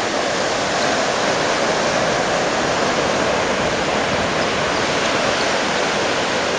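Steady rush of 3 to 4 foot surf breaking, an even wash of noise with no single wave crash standing out.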